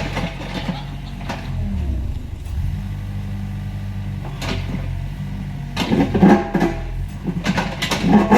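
Mini excavator engine running steadily under load while it digs, with intermittent clanks and scrapes from the bucket working the soil and debris. The clanks come thickest near the end.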